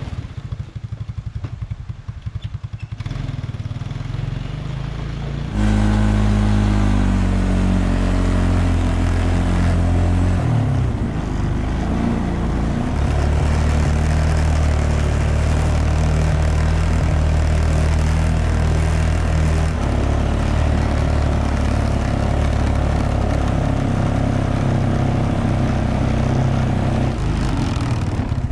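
ATV engine idling, then about five seconds in it revs up and runs loud and steady under load hauling a lumber trailer, its pitch dipping and rising a few times as the speed changes.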